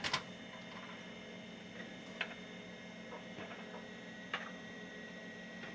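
Faint, sparse clicks as a SID chip is handled and seated in a ZIF test socket on a Commodore 64 board, the two clearest about two seconds apart, over a faint steady hum.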